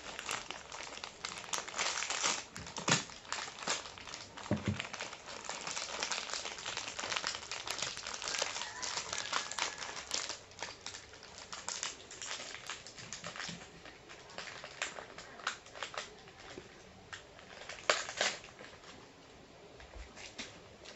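Plastic snack wrappers crinkling and rustling as packaged cupcakes are torn open and unwrapped. The crinkling is dense for the first ten seconds or so, then comes in scattered short rustles.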